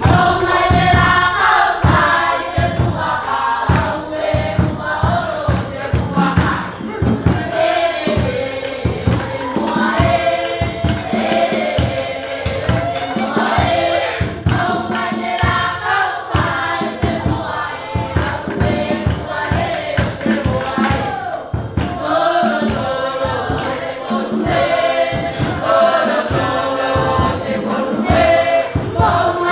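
A group of voices singing together over a fast, steady drum beat.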